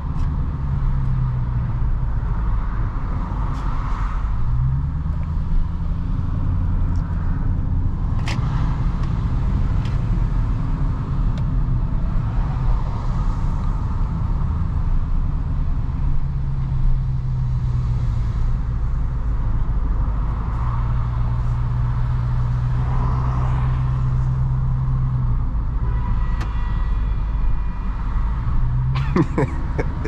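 Dodge Charger Daytona 392's 6.4-litre HEMI V8 running at low revs on light throttle in slow traffic, a steady low rumble heard from inside the cabin, its pitch stepping up and down slightly with the throttle. A few sharp clicks near the end.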